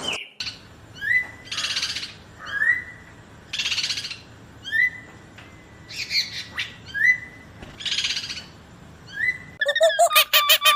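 A bird calling over and over, about every two seconds: a short rising note alternating with a harsh, raspy call. Near the end a different rapid, pitched animal call cuts in.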